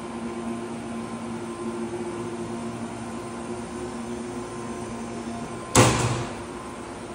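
The hinged sheet-metal cover of the lathe's bar feeder is slammed shut near the end: one loud bang with a brief rattling decay. Under it runs a steady shop hum with a couple of low tones.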